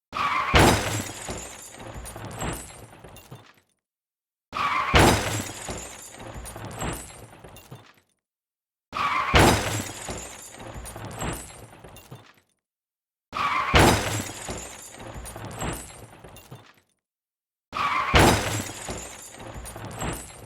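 Car crash sound effect repeated five times, about every four and a half seconds. Each time a brief tyre squeal is followed by a loud smash, then a few seconds of breaking glass and debris clattering down, with about a second of silence before the next.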